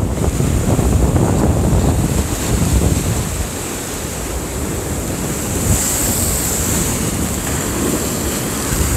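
Rough sea surf breaking and washing against rocks, with strong wind rumbling on the microphone.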